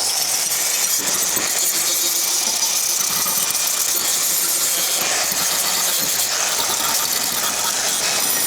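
Power tool with an abrasive or wire wheel scouring rust off the car's sheet-steel body behind the hinge panel: a steady, hissing grind.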